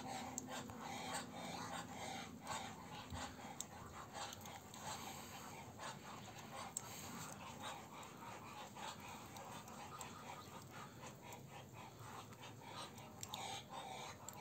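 Muscovy drakes making faint, breathy hissing calls, short puffs repeating over and over.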